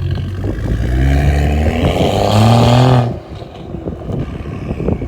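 BMW 535i on a stage 2 tune with downpipes and aftermarket mufflers, revved up for about two seconds. About three seconds in the throttle is let off and the revs fall, and the exhaust crackles and pops on the overrun.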